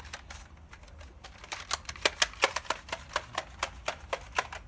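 A fast run of sharp clicks, sparse at first, then about five a second for the last three seconds.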